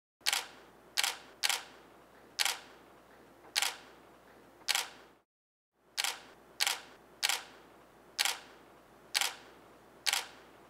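Camera shutter firing about a dozen single clicks, roughly once a second at uneven intervals, with a brief dead silence about five seconds in.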